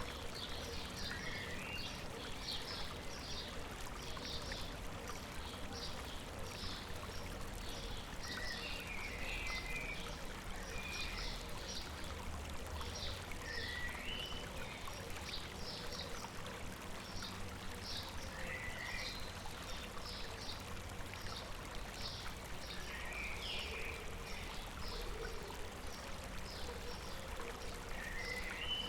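A river flowing with a steady rushing sound, while birds chirp rapidly and continuously throughout, joined now and then by other birds' short rising and falling calls.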